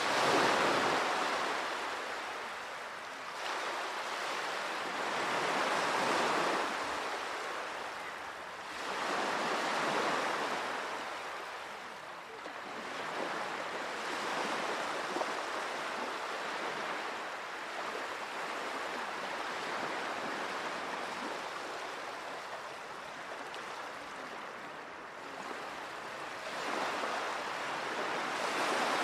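Sea waves washing onto the shore, a noisy surf that swells and fades every few seconds.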